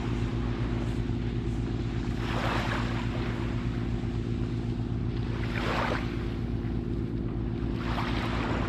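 Boat engine running steadily with a low hum, while water splashes in three short rushes.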